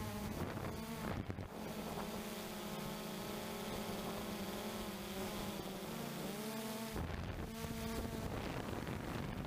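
Blade 350 QX3 quadcopter's four brushless motors and propellers buzzing, heard from the onboard camera. The whine's pitch drifts up and down as the throttle changes, with wind rumble on the microphone near the start and again about seven seconds in.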